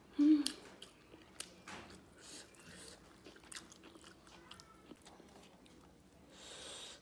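Close-up eating sounds: fingers squishing and mixing rice with curry on a steel plate, with scattered wet clicks, smacks and chewing. The loudest moment is a brief, short sound just after the start.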